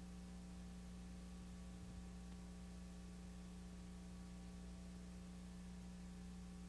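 Faint steady electrical hum with hiss from the playback of an old videotape on a blank, black stretch with no programme sound, with one small tick about two seconds in.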